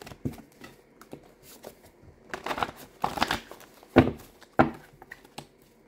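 Tarot cards being handled: a run of crinkly rustling and small clicks, then two sharp taps about four seconds in as cards are put down on the table.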